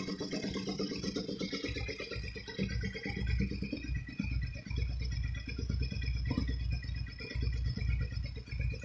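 Suzuki SV650's V-twin engine idling steadily. Wind buffets the microphone from about two and a half seconds in.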